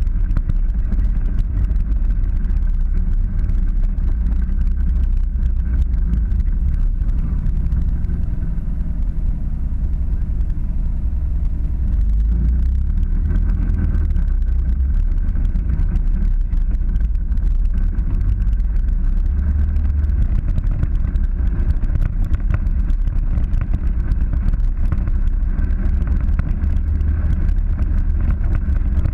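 Polaris 900 side-by-side's engine running steadily while it drives over a rough dirt track, heard as a heavy low rumble.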